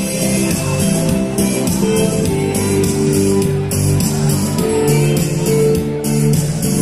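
Country music with guitar over a steady drum beat, played loud through the stage PA speakers.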